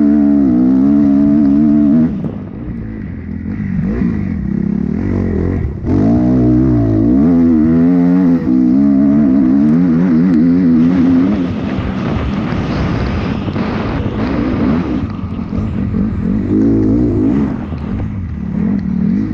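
Motocross bike engine under hard acceleration, heard from a camera on the bike. The revs climb and fall with the throttle, cut off sharply about two seconds in and pick up hard again around six seconds. In the second half the revs are lower and uneven, with a couple of short rev surges near the end.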